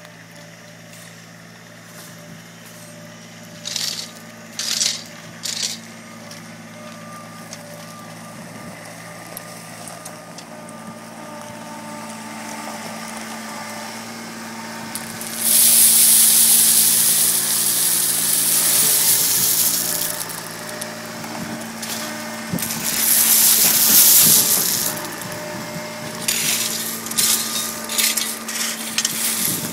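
Loose gravel being poured and shoveled over landscape cloth: a few short scrapes early on, then two long loud rushes of pouring stone about halfway and two-thirds of the way through, followed by several shorter scrapes near the end. An engine idles steadily underneath.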